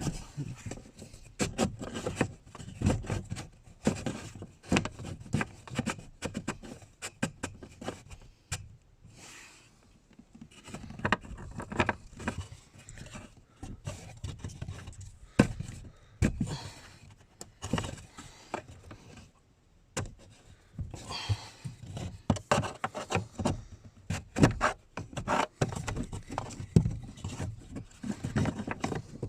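Irregular clinks, taps and scrapes of hand tools and metal parts being worked by hand, as a fuel pump's fastening nut is worked on in a cramped space, with two short lulls.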